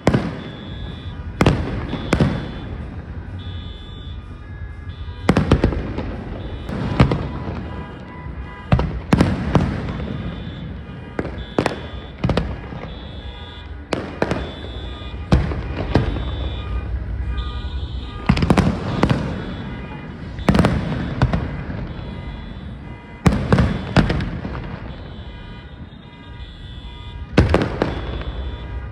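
Fireworks bursting in a rapid, irregular series of loud bangs, one every second or two with short lulls, each bang trailing off in an echo.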